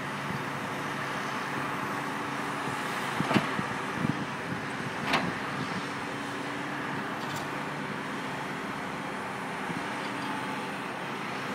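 Volvo EC290B long-reach excavator's diesel engine running steadily as the boom and bucket work, with a few sharp knocks, the loudest about three and five seconds in.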